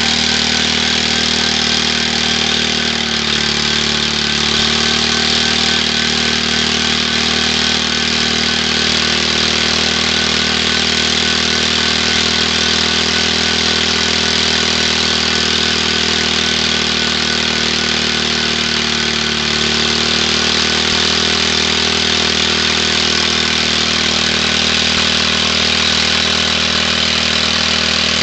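Lawn mower engine running steadily while its drive wheel spins in place, its pitch dipping slightly a couple of times.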